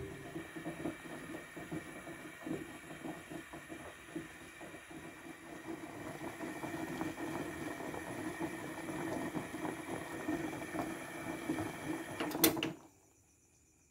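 Water boiling hard in a pot around a woven bamboo basket of rice: a dense, irregular bubbling and popping. It ends in a sharp click and stops abruptly near the end.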